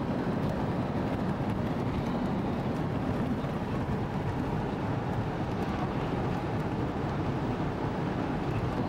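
A moving vehicle running steadily: an even rumble that holds at one level without change.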